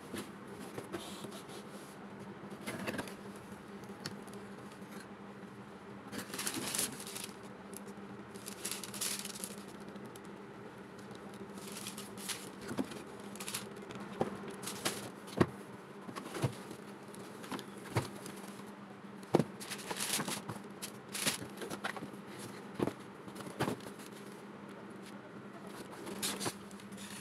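Cardboard mailer box being opened and unpacked by hand: paper and card rustling, with scattered light clicks and taps as items are picked up and set down. A steady low hum runs underneath.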